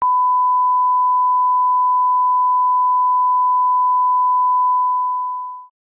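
Line-up test tone played with colour bars: a single steady 1 kHz reference beep, held at one pitch and level, that fades out quickly near the end.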